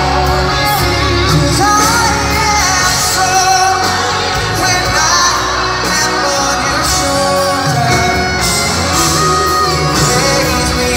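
Live pop ballad in an arena, heard from among the audience: a male singer singing into a microphone over the band's backing, with shouts from the crowd.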